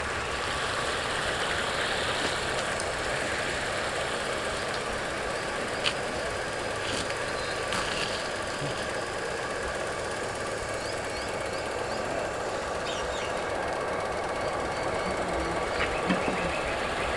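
Scratch-built twin-jet RC boat running on the water with a steady drone and a faint whine. It is short of power.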